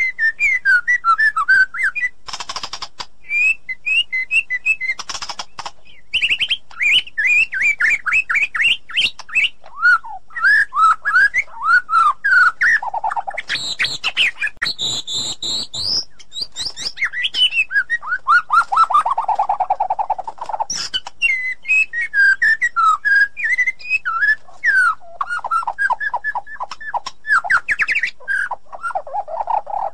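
White-rumped shama singing a long, varied song: quick runs of clear whistled notes, with short harsh rasping notes woven in.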